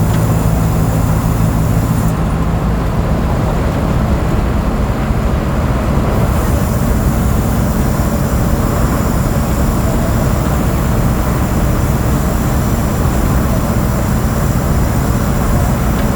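Mercedes-Benz OF 1722M city bus running under way, its diesel engine and road noise making a steady loud rumble. A steady engine hum in the first couple of seconds blends into a more even rumble.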